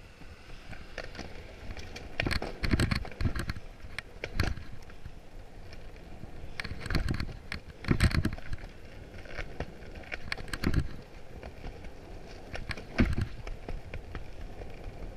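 Skateboard wheels rolling on a concrete sidewalk: a steady rough rumble broken by a string of irregular sharp clacks and thumps.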